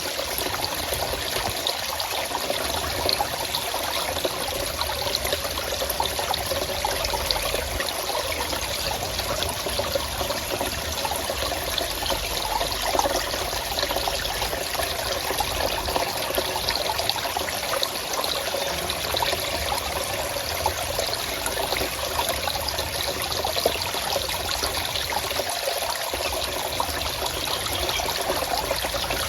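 Forest stream flowing and trickling steadily, a constant babble of water with no breaks.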